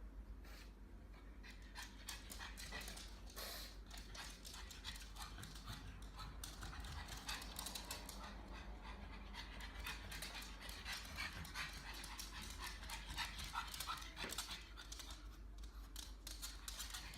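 Pug panting in quick, short breaths, with a few brief higher-pitched notes about three-quarters of the way through.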